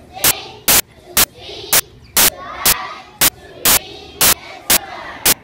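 Loud bursts of digital static, about two a second, each a fraction of a second long and cutting in and out sharply, over children's voices.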